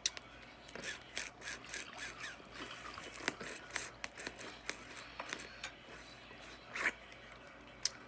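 Close-up eating sounds from a seafood mukbang of mussels and crawfish: irregular clicks and smacks of chewing and handling shellfish, several a second.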